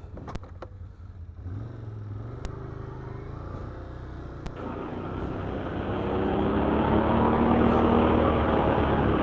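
ATV engine running on a trail ride, pulling harder and getting louder through the second half, with a few sharp clicks in the first few seconds.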